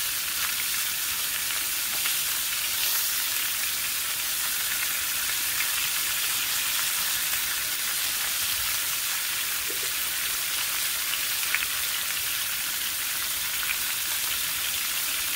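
Beef roast searing in hot oil in a skillet: a steady sizzle of frying fat with a few small pops.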